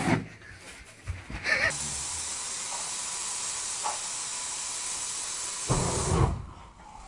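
Aerosol spray can hissing steadily as it sprays, lit by a lighter into a burst of flame twice: once right at the start and again about six seconds in, after which the hiss stops.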